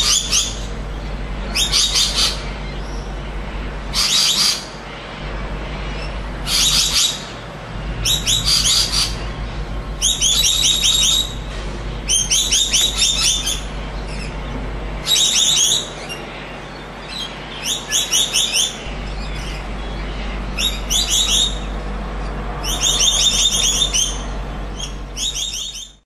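Rainbow lorikeets calling: repeated bursts of shrill, rapid chattering screeches, one every second or two, over a steady low hum.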